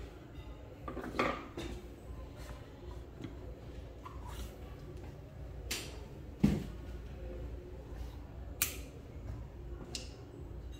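Scattered clicks and knocks of metal air-rifle parts and hex-key tools being handled on a wooden workbench during disassembly of a PCP air rifle, about six in all, the loudest a dull knock a little past the middle.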